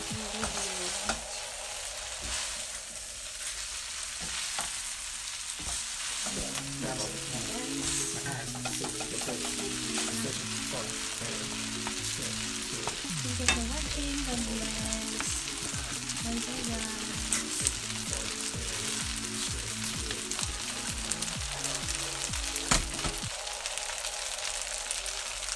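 Yakisoba noodles with cabbage and meat sizzling steadily in a hot wok while a wooden spatula stirs and tosses them, with a few sharp knocks of the spatula against the pan.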